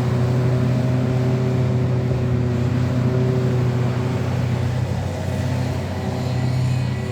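Hitachi ZX450LC-3 excavator's diesel engine running steadily, with a slight dip and rise in level about five to six seconds in.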